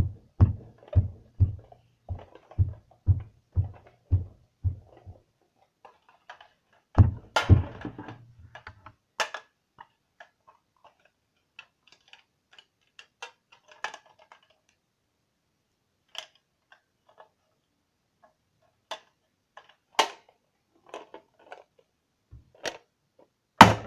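A run of dull knocks, about two a second, for the first five seconds. A heavier thump comes about seven seconds in, then sparse faint clicks and taps, with a sharp click near the end.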